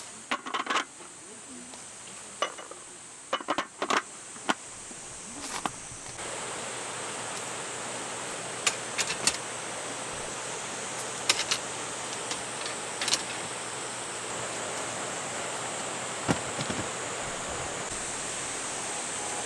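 Steady rushing of a mountain stream, coming up about six seconds in, with scattered light clicks and clinks of small objects being handled.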